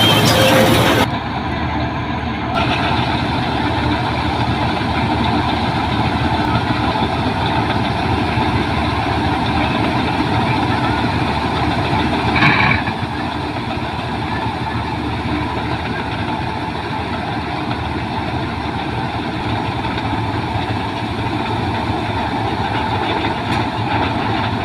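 Combine harvester running steadily while harvesting wheat, a continuous loud mechanical noise. The level drops about a second in, with a brief louder burst about halfway through.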